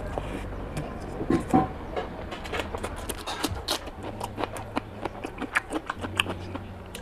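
Close-miked eating: wet chewing and lip-smacking of a mouthful of rice and chicken curry eaten by hand, a quick run of sharp clicky mouth sounds, with a louder wet knock about a second and a half in.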